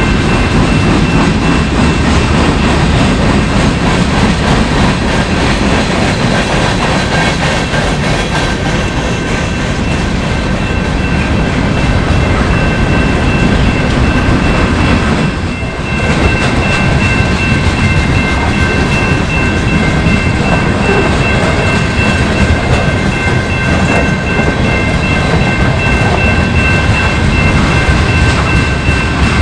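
Freight train's boxcars and tank cars rolling past: a steady rumble and clatter of wheels over the rails, with a steady high whine running under it. The level dips briefly about halfway through.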